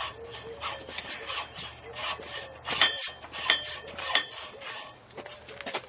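Hand hacksaw cutting through metal in quick, even back-and-forth strokes, about three a second, with a faint metallic ring between strokes.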